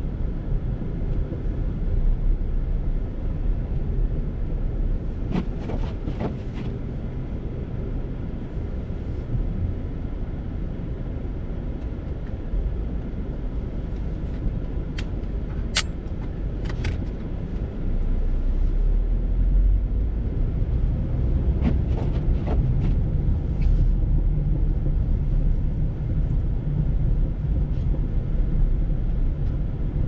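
Car interior noise while driving on a snowy road: a steady low rumble, a little louder from just past halfway, with a few scattered short clicks and knocks.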